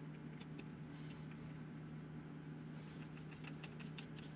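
Small clicks and ticks of a hex driver and small screws being handled on an RC buggy chassis, a few of them bunched together about three to four seconds in, over a steady low hum.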